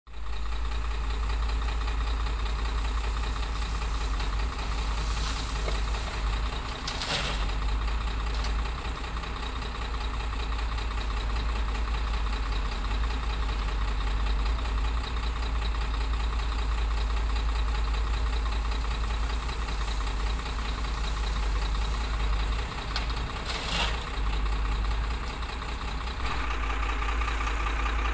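Diesel engines of a Doosan 140 excavator and a dump truck running steadily while rock is loaded into the truck bed. There are brief clatters about seven seconds in and again a few seconds before the end, and the engine note changes shortly before the end.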